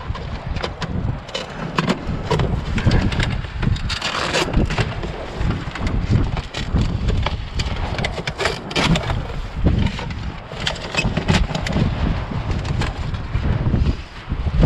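Gusty wind buffeting the microphone, with scattered clicks, knocks and scrapes of debris being handled and shifted while rummaging through a dumpster.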